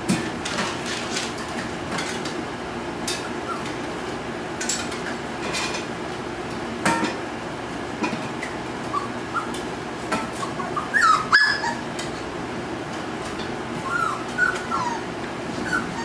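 Nova Scotia Duck Tolling Retriever puppies whimpering and yipping in short, high squeaks, in a cluster past the middle and again near the end. Scattered clinks and knocks throughout from hanging metal cans and chains being bumped.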